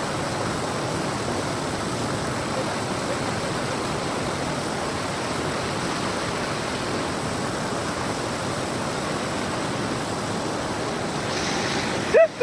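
Steady rushing of a waterfall and its fast floodwater, the stream swollen and running hard after heavy rain.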